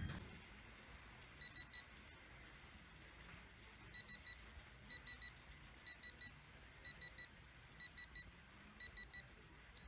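Pittsburgh digital torque adapter beeping in quick sets of three, about once a second, as torque builds on a brass oxygen-regulator fitting, warning that the preset 16 to 20 foot-pound torque is near. A longer steady beep sounds at the very end.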